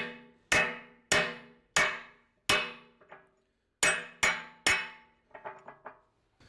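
Hand sledge striking a steel punch held in vice grips, driving a new retaining pin into an excavator bucket tooth and its lock. Eight ringing metal blows: five at a steady pace, then a pause of about a second, then three quicker ones, followed by a few faint light clicks.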